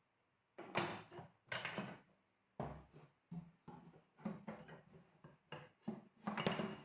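Wooden bed-slat offcuts knocking and scraping against the panels of a melamine particleboard cabinet as they are handled into place: a string of about ten short knocks and scrapes, the loudest about a second in and near the end.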